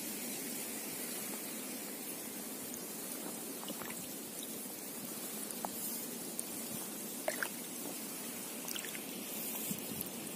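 Soft steady trickle and lapping of river water around a drifting kayak, with a few light drips and small splashes about halfway through.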